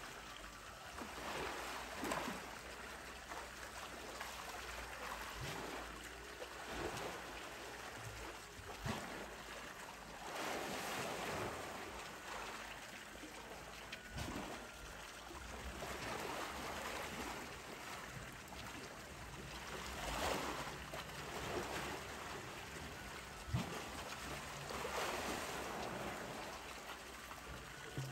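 Pool water sloshing and splashing as a polar bear swims, in swells every few seconds with a few short knocks.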